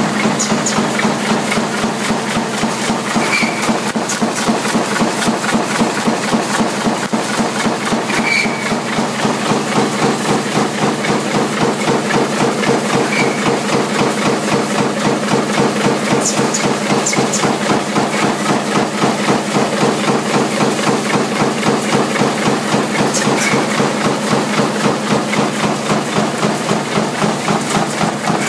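Punch press stamping motor laminations from coil strip advanced by a gear feeder: a rapid, even clatter of press strokes over a steady machine hum.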